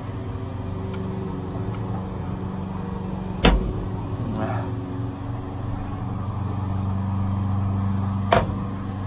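A steady low hum runs throughout. Two sharp knocks stand out, one about three and a half seconds in and one near the end.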